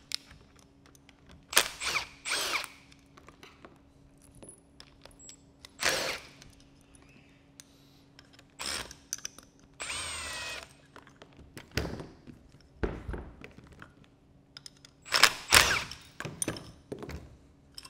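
Cordless drill driver running in repeated short bursts as it backs out the screws holding a sandblast metering valve's top cap.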